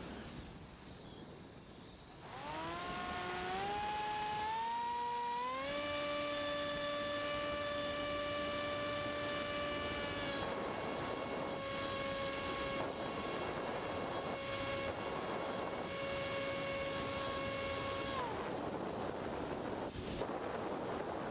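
Multiplex EasyStar model plane's electric motor and propeller, heard from on board: a whine that rises in steps as the throttle opens about two seconds in, holds steady, dips slightly about ten seconds in, then cuts off sharply about eighteen seconds in. Wind rushes over the airframe and microphone throughout, most plainly once the motor is off and the plane glides.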